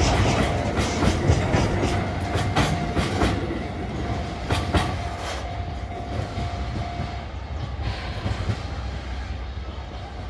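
Freight train hauled by a single locomotive rolling past, its wheels clacking over rail joints, with a thin steady whine in the middle. The clacking thins out and the sound fades as the train moves away.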